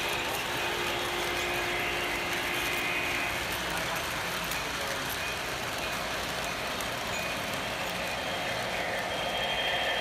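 O scale model freight train rolling past on its track: a steady rumble and clatter of the cars' wheels, with crowd chatter in a large hall behind. Near the end it gets louder as a model diesel locomotive's engine sound comes close.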